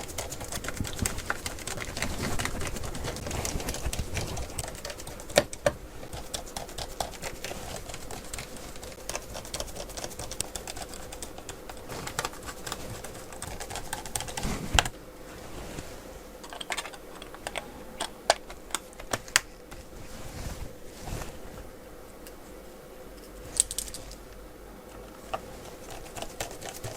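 Scattered small clicks and taps of a screwdriver, screws and the laptop's plastic case as the screws are put back into the Medion E2291 laptop. The clicks come thicker in the first half and sparser later.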